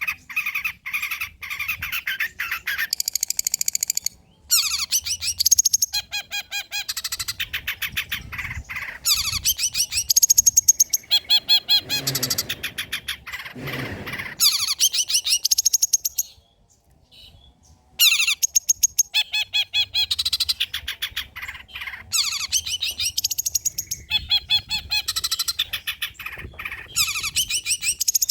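Long-tailed shrike (cendet) singing a fast, varied song of rapid repeated notes, trills and harsh chatter, made up largely of phrases mimicked from other birds. It breaks off briefly a little past the middle, then carries on.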